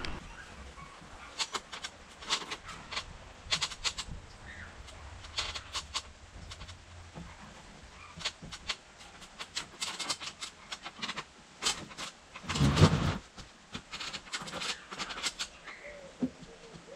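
Irregular clicks and light knocks of timber being handled against a wooden shed frame, with one louder thump about two-thirds of the way through.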